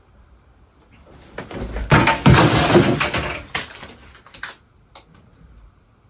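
Duvet and bedding rustling loudly for about two seconds as someone moves in bed, followed by a few faint clicks and taps.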